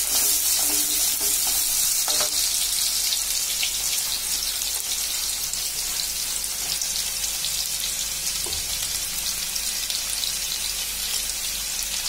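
Hot sesame oil sizzling steadily with fine crackles as raw mango pieces sauté, with onions frying alongside.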